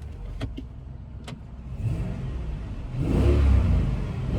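Chrysler 300C's 5.7-litre Hemi V8 on its stock exhaust, heard with the windows down, accelerating: a low, muted rumble whose pitch rises about two seconds in and which grows louder for the last second or so. A few sharp clicks sound in the first second and a half.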